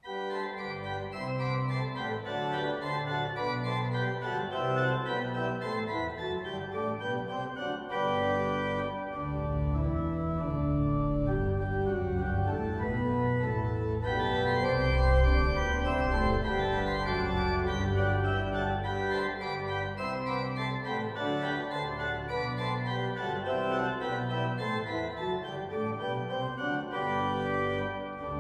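Church organ playing a postlude after the dismissal: sustained chords over a deep pedal bass.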